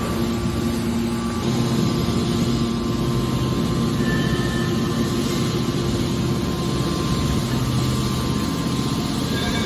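Hydraulic aluminium can baler running: a steady machine hum with a few constant tones and no break or change.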